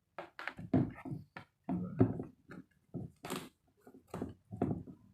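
Hands handling a sneaker: a quick series of short knocks, taps and rustles, the loudest about a second and two seconds in.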